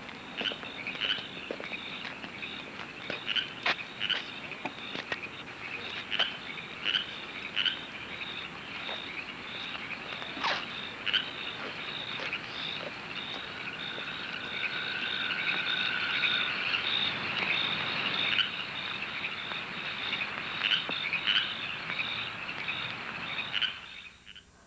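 Crickets chirping in a steady, evenly pulsed rhythm, with scattered sharp clicks over them, fading down near the end.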